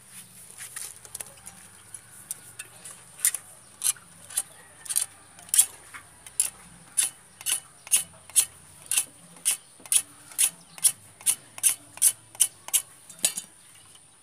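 Short, sharp scraping strokes during PVC pipe work, faint at first, then regular at about two a second from about three seconds in, stopping shortly before the end.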